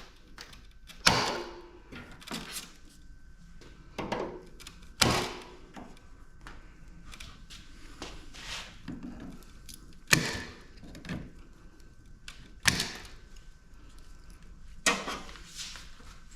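Scattered sharp knocks and clanks of hand tools and metal parts as a PTAC air conditioner unit is taken apart, with quieter handling rattles between the hits.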